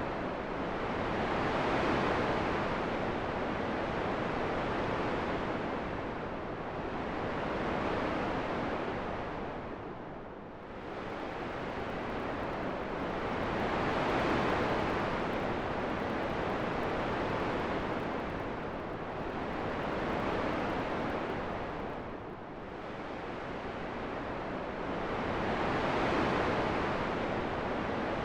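Rushing wind noise: an even hiss with no tones that swells and eases in slow waves, with a deep lull about every twelve seconds.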